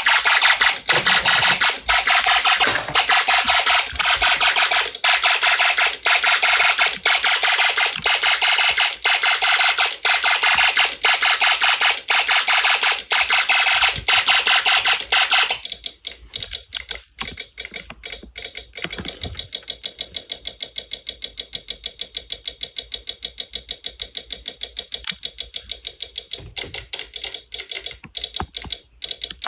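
Electronic alarm sound from a Snap Circuits fire alarm circuit: a harsh, buzzy electronic tone for about fifteen seconds, then changing to a quieter, rapid, even run of clicks.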